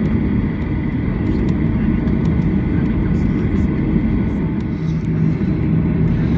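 Cabin noise of a Boeing 737-800 taxiing: a steady low rumble from its CFM56-7B engines at taxi power, with a few faint ticks.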